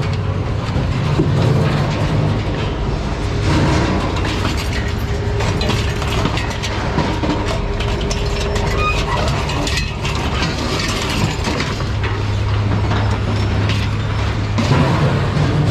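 Ratchet tie-down straps being undone on a loaded scrap truck, with clicks and metal clanks over a steady low engine or machinery hum.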